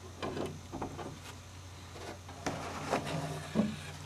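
Scattered light knocks, clicks and rubs of a wooden sliding bevel and strips of timber being handled and set against one another while an angle is marked, over a steady low hum.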